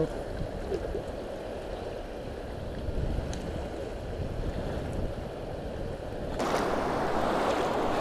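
Fast river water rushing at high flow from a full dam release, with wind rumbling on the microphone. About six seconds in, the rushing hiss suddenly grows louder and brighter.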